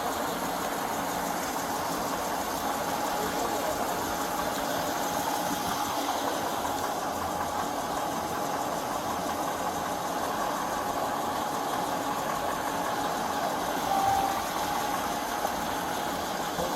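Steady hum of an idling vehicle engine, with a short beep near the end.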